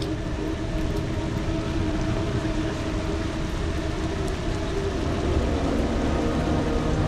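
Steady rumble of wind and rain, with a low mechanical hum under it.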